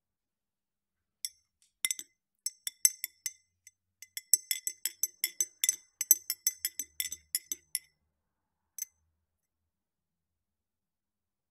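Metal teaspoon stirring tea in a ridged drinking glass, clinking against the glass walls: a rapid, uneven run of bright ringing clinks that starts about a second in, then one last clink after a short pause.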